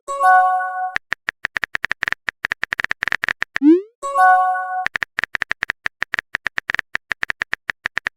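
Synthesized sound-effect loop: a short rising pop, a held electronic chime chord, then a few seconds of rapid clicking blips. The whole sequence runs twice.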